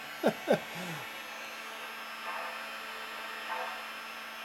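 Steady electric buzzing hum from the model train layout's operating lumber mill accessory. Two short sharp squeaks come in the first second.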